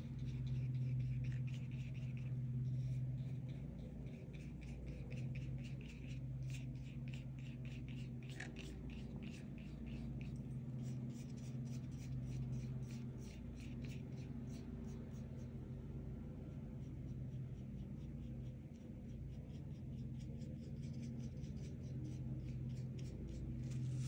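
A drawing tool scratching on paper in quick repeated strokes, about three or four a second, over a steady low hum.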